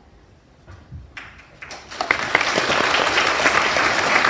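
An audience of schoolchildren applauding: a few scattered claps, then about two seconds in the clapping breaks out all at once and keeps going.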